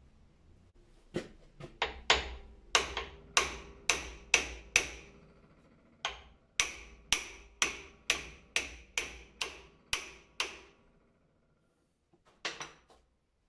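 Steel hammer striking the old crown wheel of an Isuzu rear differential held in a vise, knocking it loose from the carrier. There are two runs of sharp, ringing blows at about three a second, each about a dozen strong, then a few last taps near the end.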